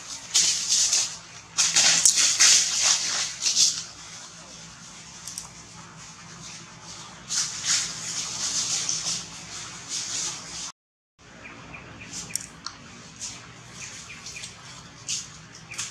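Dry forest leaves rustling and crunching in three loud bursts. After a brief dropout, several short high chirps.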